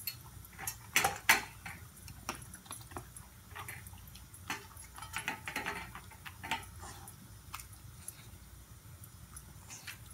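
American Eskimo dog eating from a stainless steel bowl: irregular clinks against the metal and chewing. The two sharpest clinks come about a second in, and they thin out over the last couple of seconds.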